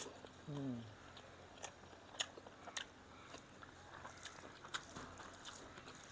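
Close-up chewing and lip-smacking of a handful of rice and curry eaten by hand, with sharp wet mouth clicks scattered through. About half a second in there is a short falling hum.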